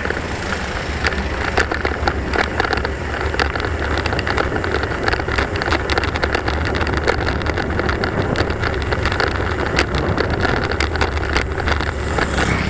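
Ride noise from a bicycle-mounted camera on a rough road: a steady low rumble of wind and rolling, with frequent irregular clicks and rattles as the bike jolts over the uneven surface.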